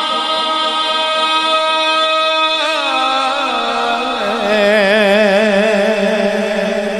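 A man sings a naat unaccompanied into a microphone, holding out a long drawn note. From about four seconds in, the pitch wavers in a quick ornamented run.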